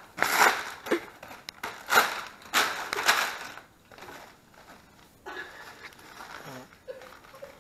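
Gift wrapping paper being torn and crumpled, in several quick rustling bursts over the first three seconds or so, followed by fainter rustling as a package is handled.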